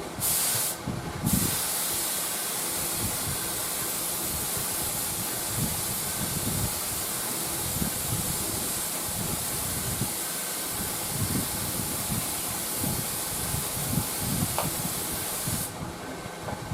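Lacquer being sprayed onto a wooden radio cabinet: a steady, loud hiss. Two short bursts come first, then one long continuous pass of about fourteen seconds that cuts off shortly before the end.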